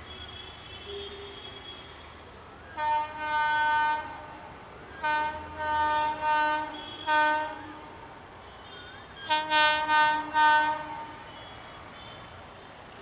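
Locomotive horn sounding repeated blasts as a train approaches: a short and a long blast about three seconds in, a run of four blasts a little later, then four quick blasts near the end, over a faint low rumble.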